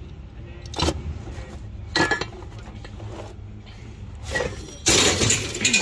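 Small pieces of scrap metal clinking as they are handled in a cardboard box, a few separate clinks. Near the end comes a longer, louder metallic clatter as the scrap is tipped into a steel drum.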